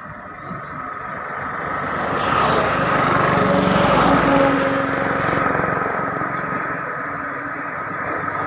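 A motor vehicle approaching and passing along the road, its engine and tyre noise swelling to a peak about four seconds in and then fading away; near the end another vehicle begins to come closer.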